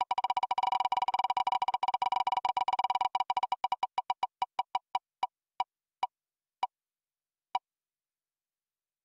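Ticking sound effect of an online spin-the-wheel raffle app as its wheel spins down. Rapid electronic ticks, at first almost running together, slow steadily as the wheel loses speed; the last few come well over half a second apart before the wheel stops.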